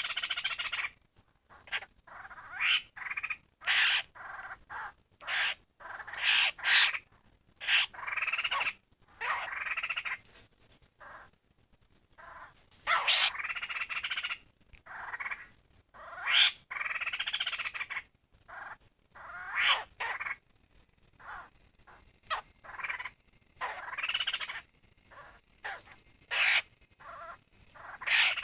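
Laughingthrush (khướu) giving its 'kiú' call: bursts of short, sharp notes and longer phrases, repeated with brief pauses between them.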